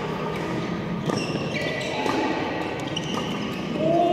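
Badminton play on a hall court: shoes squeaking on the court mat, with a couple of sharp racket-and-shuttlecock hits, echoing in the large hall.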